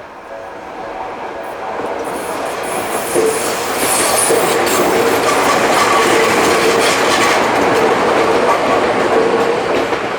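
A Tokyu Oimachi Line train passing over a level crossing, its wheels clattering over the rail joints. It grows louder over the first few seconds and stays loud, with a faint thin squeal from the wheels.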